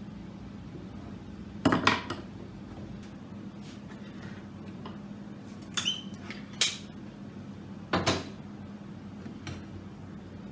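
Wooden jig parts and tools handled on a workbench: about six separate knocks and clatters, the loudest about two seconds in and about eight seconds in, over a faint steady hum.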